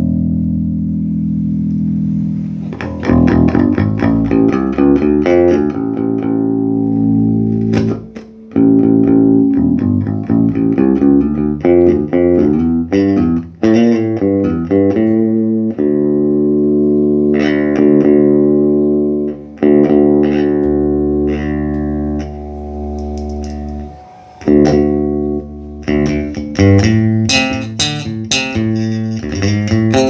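Bass guitar played through a Laney RB4 bass combo amp: plucked notes and chords, many held and left ringing for a few seconds, with short breaks between phrases. This is the amp's sound test after repair of a fault that made its sound cut out randomly.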